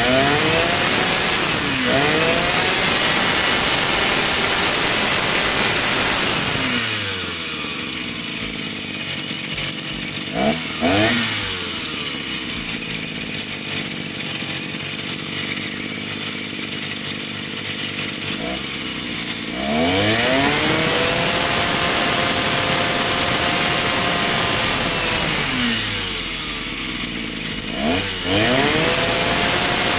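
Freshly rebuilt Honda UMK40 two-stroke brush cutter engine running, revved up and held at high speed. It drops back to idle about a quarter of the way in, gives a quick blip, idles, then revs up again. It falls back once more and revs up near the end.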